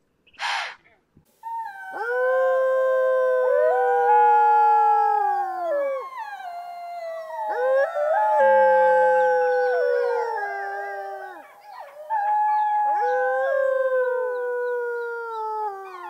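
A white-tailed deer's single short blow, a sharp alarm snort, then several wolves howling together. Their long howls overlap at different pitches, gliding up and down with brief breaks between.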